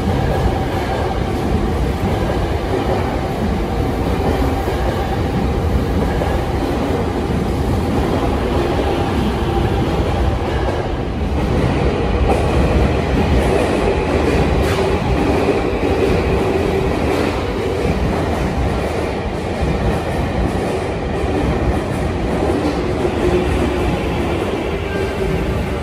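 A Tokyo Metro Hanzomon Line train pulls out of an underground station, its wheels and motors running along the platform. After a short lull about eleven seconds in, a Tokyu 5000-series train comes in, with a steady motor whine over the rumble of its wheels.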